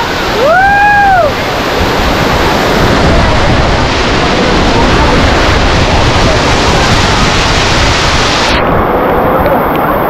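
Waterfall roaring: a loud, steady rush of falling water. About half a second in there is a short tone that rises and falls. Near the end the higher hiss of the roar drops away suddenly.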